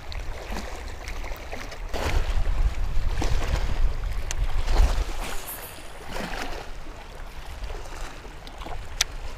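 Wind buffeting the microphone, heaviest from about two to five seconds in, over small waves lapping against shoreline rocks. A single sharp click near the end.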